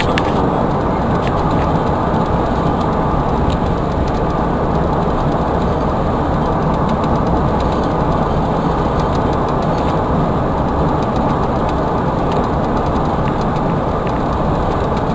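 Steady road and engine noise of a vehicle driving at speed, heard from inside the cab, with a few faint ticks.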